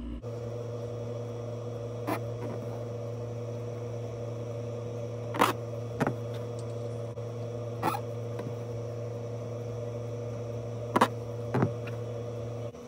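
Hand embroidery stitching: a needle pierces taut fabric in a hoop and thread is drawn through, heard as about six brief ticks and rasps. Under them is a steady low electrical hum that cuts off just before the end.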